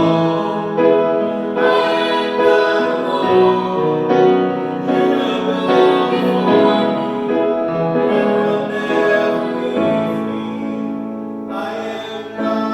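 Music with piano and singing.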